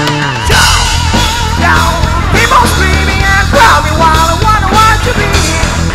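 Rock band playing an instrumental break on drums and amplified instruments, with a high lead line that bends and wavers in pitch over a steady, heavy low end.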